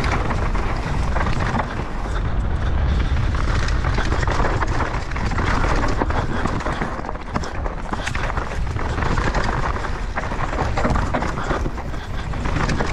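Mountain bike descending a dirt trail, heard from a camera on the rider: steady wind rumble on the microphone mixed with tyres on dirt and gravel, and many quick clattering knocks as the bike goes over bumps.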